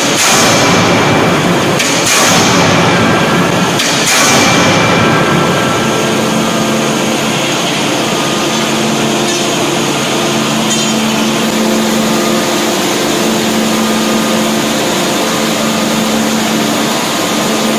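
18-ton closed-die hydraulic forging hammer striking a hot workpiece: three heavy blows about two seconds apart in the first few seconds, then a steady machine hum with no more blows.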